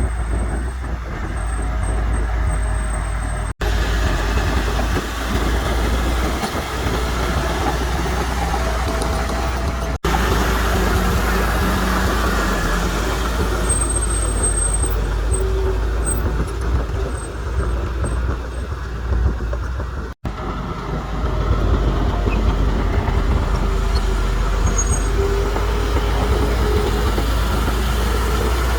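Diesel engines of heavy earthmoving machinery running steadily under load. The sound breaks off for an instant three times, about 3.5, 10 and 20 seconds in.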